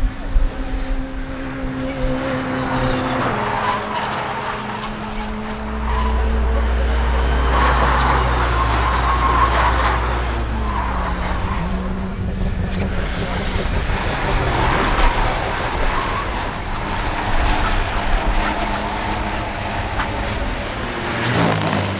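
Touring race car engine running at racing speed, its pitch stepping down and rising again through gear changes, with a heavy low rumble from about six seconds in.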